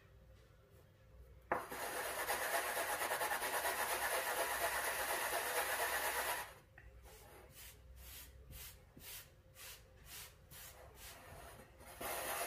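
Hands working curd dough in a metal ring mould on a floured wooden cutting board: a click as the ring goes down, then about five seconds of steady scraping and rubbing, then a run of short rubbing strokes and another brief scrape at the end.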